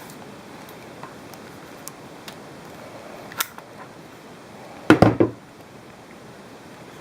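Handling noise from a hard object: a single sharp click about three and a half seconds in, then a quick cluster of loud knocks and clatters near five seconds, over faint room hiss.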